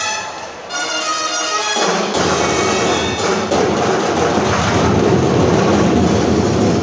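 Loud Sinulog festival dance music: a held, reedy wind-instrument melody, then about two seconds in heavy drums and a dense full-band sound take over.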